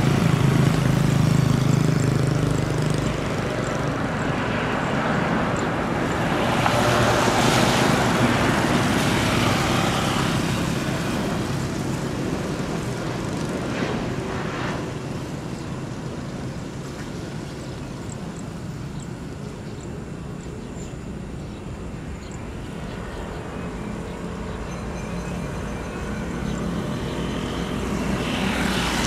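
Jet engines of a Garuda Indonesia Airbus A330 landing in the rain. A steady jet hum swells as the airliner passes close on final approach, about a quarter of the way in, then fades. A rising rush of engine and spray noise follows near the end as the aircraft slows on the wet runway.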